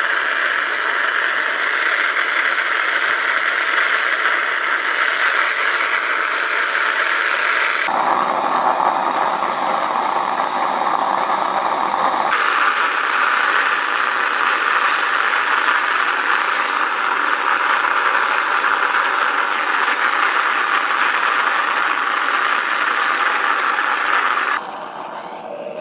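Homemade metal-melting furnace running on forced air: a steady rushing noise, with abrupt changes in tone about 8 and 12 seconds in, that drops away near the end.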